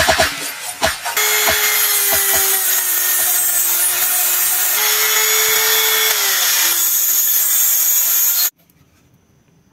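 Mini electric rotary grinder with a small bit grinding a piece of PVC, running as a steady hissing whine whose pitch dips and shifts slightly as the part is pressed against it. It cuts off abruptly near the end.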